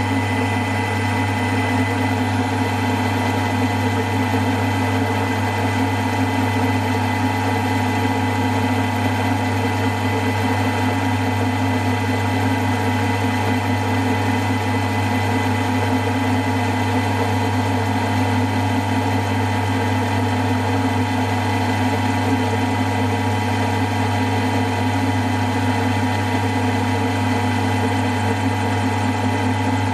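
Milling machine running steadily while a 1/8-inch end mill cuts a slot through a casting: a constant motor hum with several steady higher tones, unchanging throughout.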